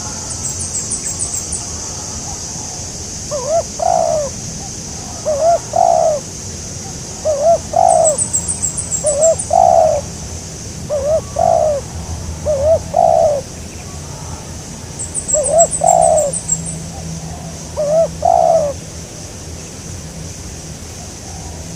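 Spotted dove cooing: about ten coos in short phrases, starting a few seconds in and stopping a few seconds before the end.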